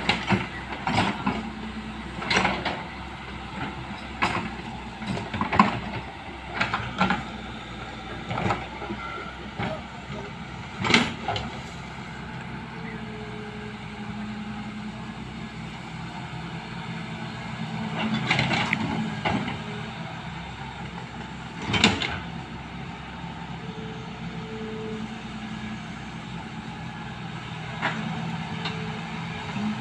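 Excavator diesel engine running steadily, with irregular sharp knocks and clanks over it: many in the first ten seconds, then a few louder ones around two-thirds of the way in.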